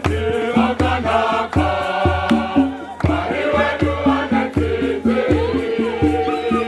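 Choir singing to a steady drum beat of about two strokes a second, with sharp percussion clicks.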